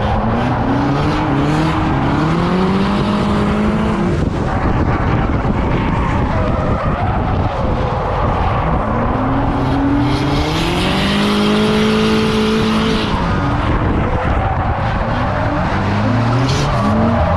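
Car engine revving hard, its pitch climbing for a few seconds and then dropping back three times, over a constant rush of tyre and road noise. About halfway through there is a stretch of high hissing that fits tyres skidding.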